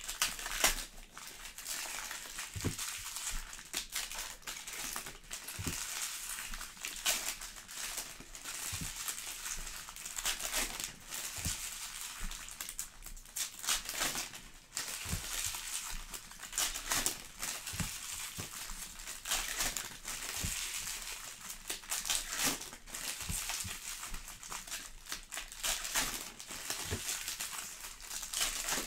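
Foil trading-card pack wrappers crinkling and cards being handled, an irregular run of rustles and small clicks.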